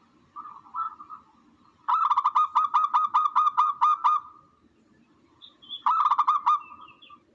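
A bird calling in fast runs of clipped, repeated notes, about five a second. A few soft notes come first, then a long run of about ten notes, and after a pause a shorter run of about four.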